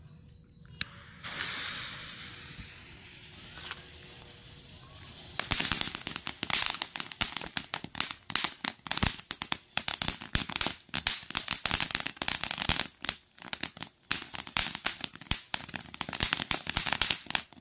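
Diamond Fireworks mini fountain burning. It starts with a hissing spray that fades over a few seconds, then from about five seconds in gives a dense run of sharp crackling pops, which stop just before the end.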